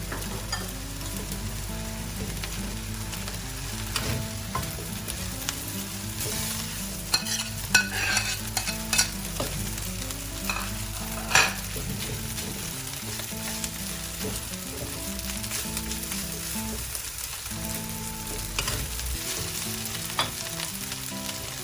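Fried rice sizzling in a hot wok as a spatula stirs and turns it, with scrapes and sharp clinks of the spatula against the wok, clustered about a third of the way in and once more near the middle.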